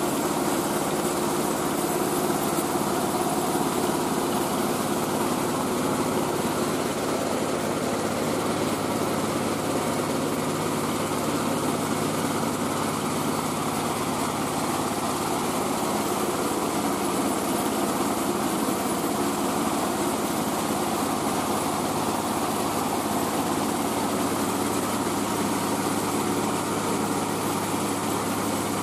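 Engine of a mobile rice-milling machine running steadily and evenly, driving the huller.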